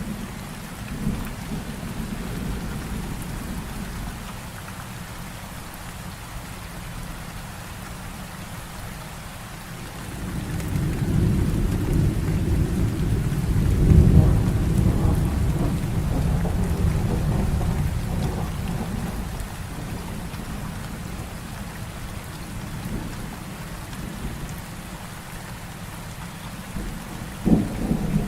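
Heavy rain falling steadily, with a long roll of thunder that builds about ten seconds in, peaks and dies away over some ten seconds. A sharper clap of thunder comes near the end.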